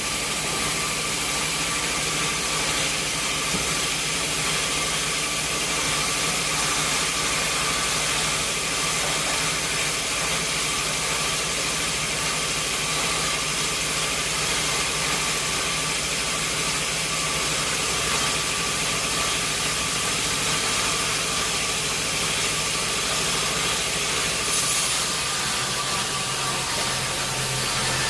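Sawmill machinery running steadily: a constant mechanical hum and hiss with a thin steady whine.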